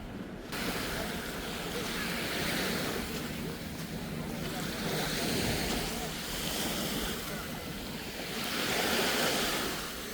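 Ocean surf washing up on a sandy beach, the wash swelling and easing every few seconds as waves break. It comes in abruptly about half a second in.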